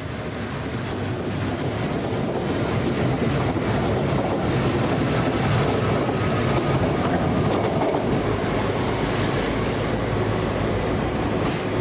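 Trenitalia Minuetto diesel railcar rolling past and pulling away: a steady low running noise that builds over the first couple of seconds, with high wheel squeals twice, around the middle and again a few seconds later.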